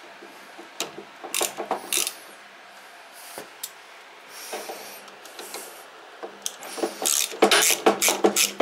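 Hand tools working a small bolt and Nylock nut on a snowblower's drive: scattered metal clicks and scrapes, then a fast run of clicking and rasping from about seven seconds in.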